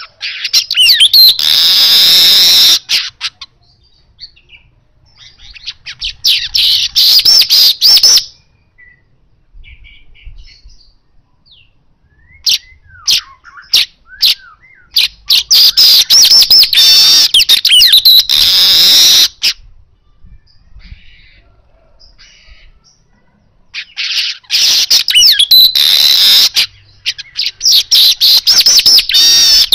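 A caged male manyar weaver singing. It gives long bursts of dense, chattering, wheezy song lasting a few seconds each, three times, with scattered short calls in the gaps between.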